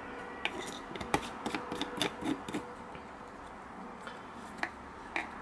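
Light clicks and taps from handling a small plastic cup and a bottle of edge paint: a quick run of a dozen or so taps in the first half, then a couple more near the end.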